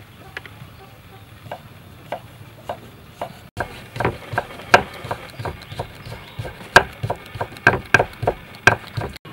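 Kitchen knife slicing kaffir lime peel into thin strips on a thick wooden chopping block, the blade tapping the wood with each stroke. The taps are sparse at first, then come quicker and louder, about three a second.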